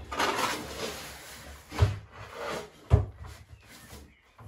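Pasted lining paper rustling and crinkling as it is slid and pressed against the wall, with two dull thumps, the first at about two seconds and the second a second later.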